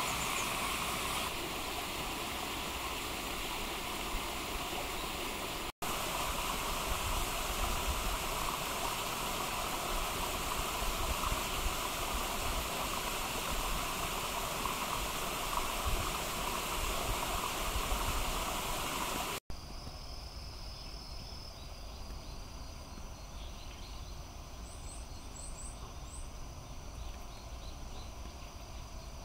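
Steady rushing outdoor background noise, like running water, broken by two abrupt cuts. After the second cut it is quieter, with a few faint high insect-like chirps and small scattered clicks from a Japanese squirrel gnawing at a walnut shell.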